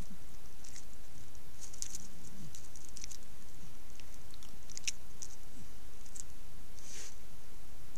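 Tasmanian devil chewing and working its jaws at something stuck in its teeth: irregular small clicks and smacks, over a steady hiss.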